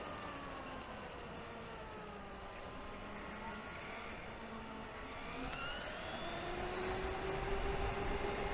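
Whine of an electric RC monster truck's motor, dropping in pitch as it slows, then climbing again about five seconds in as it speeds up.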